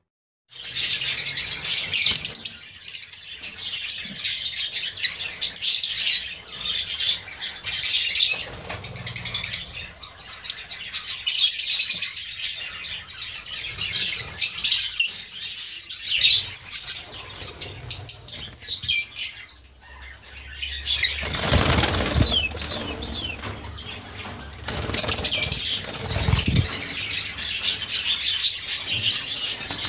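A flock of lovebirds chattering with rapid, shrill chirps and squawks, many birds calling over one another. About two-thirds of the way through, a brief louder rush of noise sounds over the calls.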